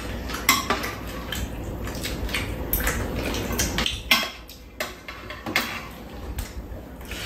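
Chopsticks and metal spoons clinking and scraping against bowls and a pan while two people eat, in short irregular clicks.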